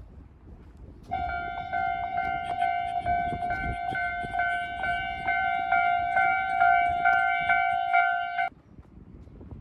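Japanese railroad crossing warning bell ringing in evenly repeated metallic dings over a low rumble. It starts about a second in and cuts off suddenly near the end.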